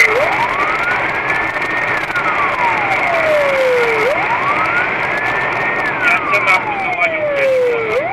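Police car siren in wail mode, its pitch sweeping up and then down about every four seconds, two full cycles, heard from inside the pursuing car over road noise.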